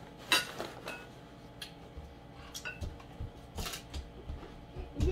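Spoon and tableware clinking during a meal: a sharp clink a moment in, then scattered light clicks and taps on plates and bowls, with a few soft low thumps near the middle.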